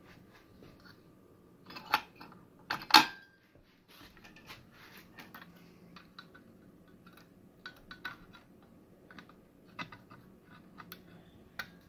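Multimeter test probes and leads being handled against a loudspeaker driver's terminals: scattered small clicks and taps of plastic and metal, with two louder knocks about two and three seconds in.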